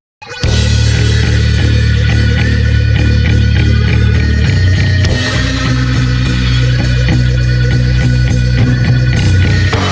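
Grindcore/sludge band recording: after a brief silence, loud guitars, bass and drums kick in about half a second in and play on without a break.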